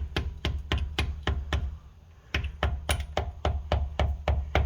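Quick light hammer taps on a 3/8-inch drive extension held against a new rear main seal, driving it evenly into its bore around the Honda Civic crankshaft. The taps come about four or five a second, with a brief pause a little before the middle.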